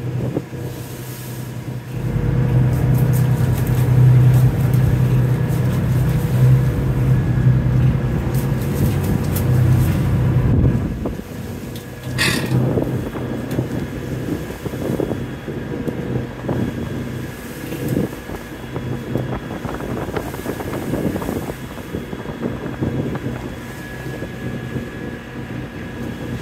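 A boat's engine running with a low steady hum, louder for the first ten seconds or so and easing back about eleven seconds in. A brief high squeak comes about twelve seconds in.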